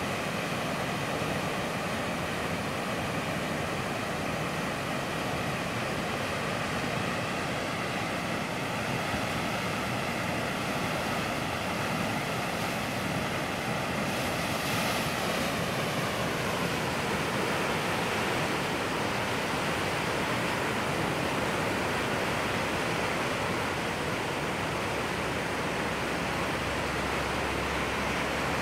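Muddy monsoon floodwater rushing steadily down a swollen creek, a constant broad roar of turbulent water.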